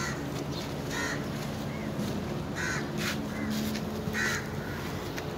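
Crows cawing, several short harsh caws roughly a second apart, over a low steady hum.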